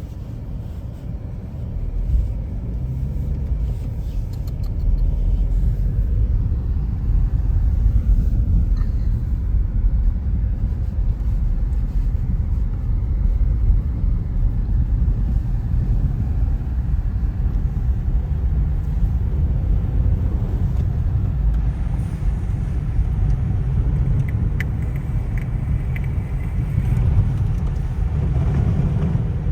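A car driving, heard as a steady low rumble of engine and road noise that swells about two seconds in.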